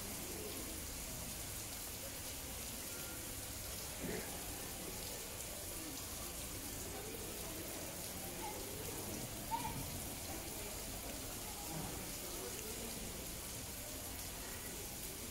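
Faint murmur of distant people's voices over a steady hiss, with one short sharp sound about nine and a half seconds in.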